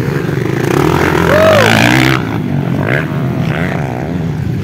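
Motocross dirt bike engines revving hard as they race past on the dirt track, loudest in the first two seconds and dropping off sharply just after two seconds in. A short shout of "woo" comes about a second and a half in.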